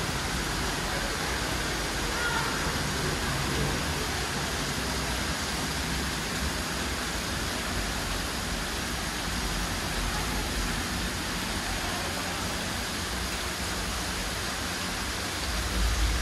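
Steady rushing of water as a ride boat moves along a water channel through a tunnel, an even hiss with a low rumble underneath that swells near the end.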